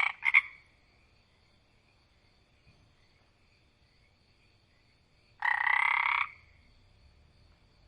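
A frog croaking. The end of one call and a short extra note come in the first half-second, then a single call about a second long comes about five and a half seconds in, over a faint steady high background chorus.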